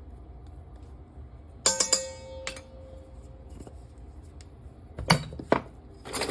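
Kitchen utensils and dishes handled while mixing batter: a sharp clink that rings on for over a second, then two quick knocks near the end.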